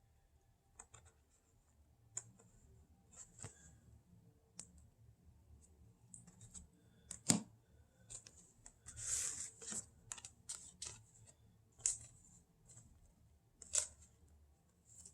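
Trading cards being handled: faint scattered clicks and rustles of card stock, with a longer sliding rustle about nine seconds in.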